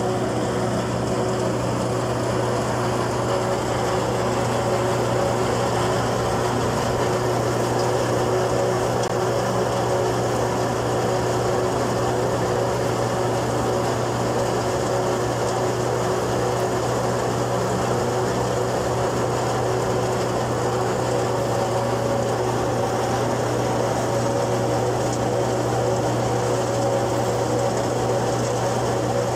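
Peanut thresher running at a steady, unchanging hum while it threshes dried peanut plants, with several steady tones over a constant low drone.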